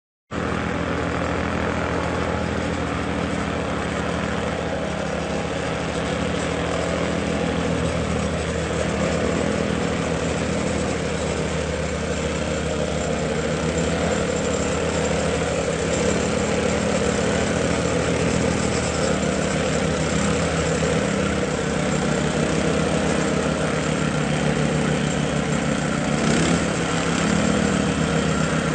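Vibratory plate compactor running steadily, its small engine droning under a fast, continuous vibrating rattle of the plate.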